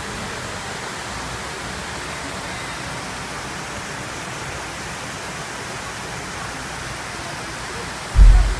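Steady rushing hiss of water falling down the walls of the 9/11 Memorial reflecting pool. A brief loud low thump comes near the end.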